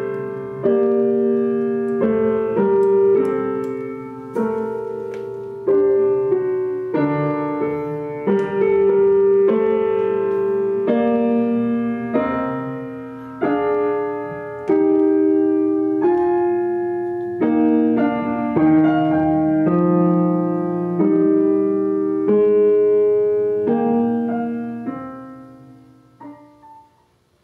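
Slow piano music, chords and single notes each struck and left to ring and decay, played back through a McIntosh C28 preamplifier and MC 2105 solid-state power amplifier. It fades out over the last couple of seconds as the volume is turned down.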